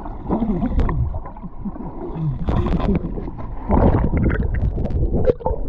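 Water splashing and gurgling close to the microphone as someone swims, in uneven surges with short sharp slaps.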